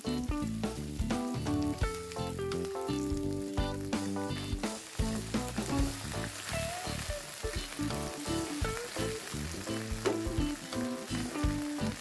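Shallots, garlic and chilies sizzling in hot oil in a frying pan, with oyster sauce just added and stirred in with a spatula. Background music plays over it.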